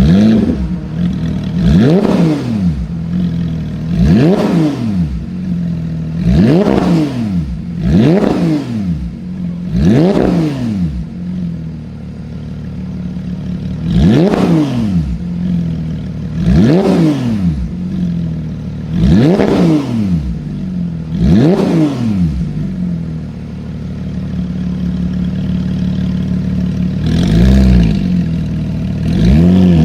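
Supercar engine being revved hard over and over, each rev a quick rise and fall in pitch about every two seconds, settling back to a steady idle between blips. The revving pauses at idle twice, once about halfway and again for several seconds near the end, before picking up again.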